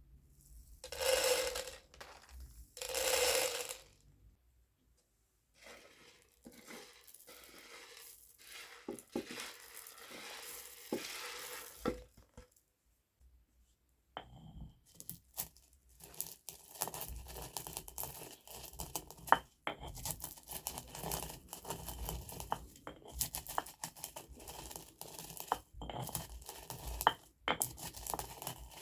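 Black peppercorns being crushed with a pestle in a mortar: sharp, irregular crackles and clicks of the seeds breaking under pressure, with grinding between them. Two short noisy bursts come at the start, the crackling is sparse for a while, and after a brief pause it turns dense and continuous.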